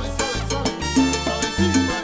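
Salsa band playing, with trumpets in the horn line over a pulsing bass and percussion rhythm.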